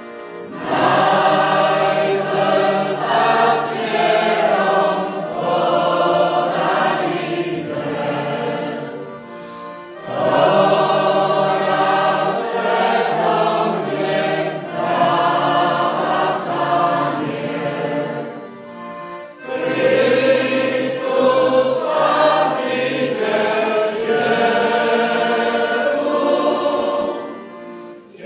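Choir singing a Christmas song in three long phrases, with short breaks between them.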